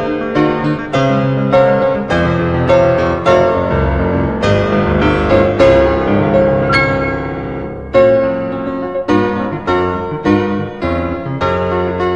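Background piano music: single struck notes and chords at an even pace, each ringing and fading away.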